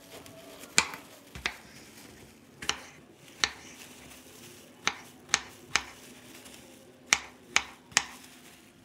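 Kitchen knife chopping an apple on a wooden cutting board: about ten sharp knocks of the blade striking the board, irregularly spaced.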